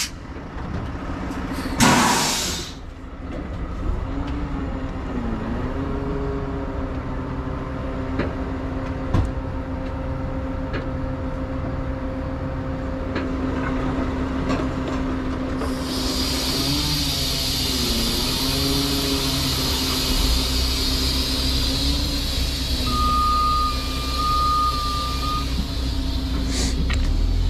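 Heavy rotator tow truck's diesel engine running steadily, its pitch dipping briefly a few times, while the boom controls are worked. A short burst of air hiss comes about two seconds in, and a steady hiss starts about sixteen seconds in and carries on.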